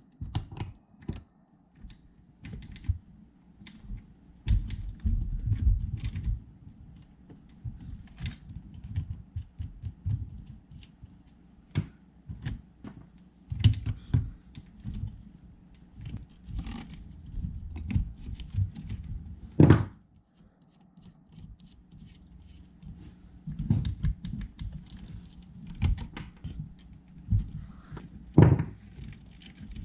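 Handling noises of a new wheel being fitted to an RC car's hub and its nut tightened with a small wrench: irregular clicks, taps and knocks of plastic and metal parts, with a few louder thumps against the wooden workbench, the loudest about twenty seconds in and near the end.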